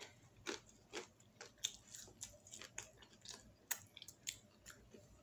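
A person chewing a mouthful of food close to the microphone, with irregular faint wet mouth clicks and smacks.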